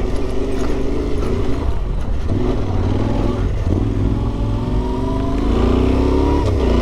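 Yamaha Ténéré 700's parallel-twin engine pulling away, running steadily at first, then rising in pitch as it accelerates from about four and a half seconds in, with a brief drop near the end as it shifts up a gear.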